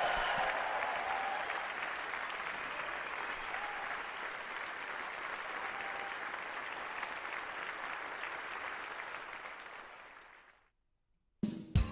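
Concert audience applauding, fading away near the end. After a moment of silence, a drum kit starts with sharp hits just before the end.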